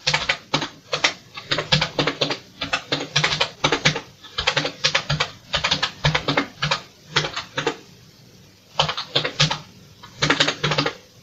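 Keys clicking on a computer keyboard as hex digits of machine code are typed in, several presses a second, with a pause of about a second past the middle.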